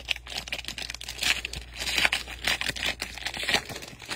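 Foil wrapper of a football trading-card pack being torn open and crinkled in the hands: a dense, irregular run of crackling.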